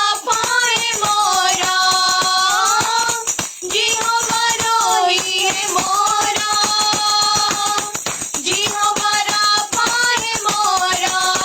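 Worship music: a melody of long held notes that slide at the ends of phrases, over a fast, steady tambourine rhythm.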